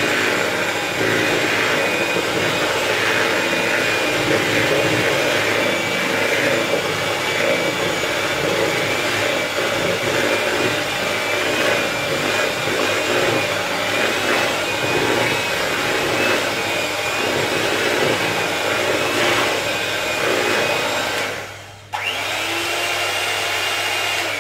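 Electric hand mixer running steadily as its beaters whisk cupcake batter in a plastic bowl, a motor hum with a thin steady whine. The motor stops for about half a second near the end, then runs again.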